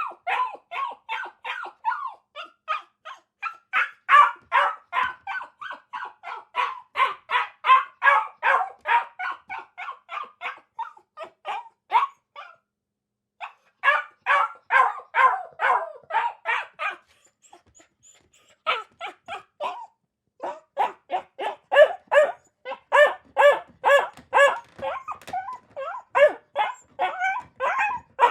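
A dog barking rapidly and repeatedly, about four short barks a second, with two brief pauses around the middle.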